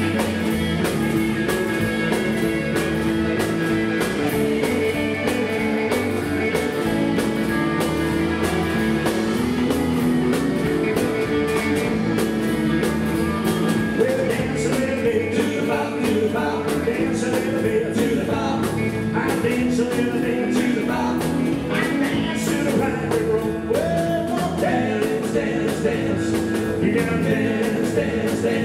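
Live rock 'n' roll band playing a steady beat on drum kit with electric guitar.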